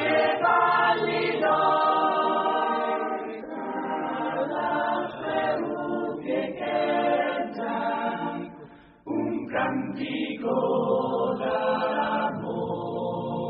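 Choir singing a cappella in long held notes, pausing briefly about nine seconds in before the next phrase.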